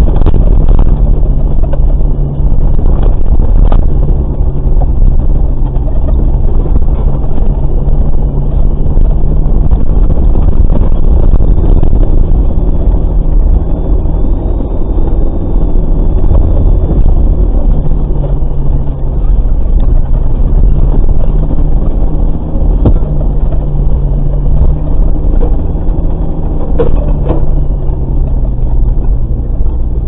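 Off-road vehicle's engine running at low revs as it crawls slowly over a rough forest dirt track, heard from inside the cabin, with a few knocks and rattles as it goes over bumps.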